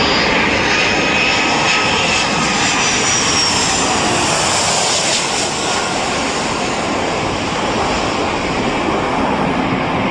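An airplane's engines running loud and steady, with a high whine that falls slightly in pitch during the first few seconds.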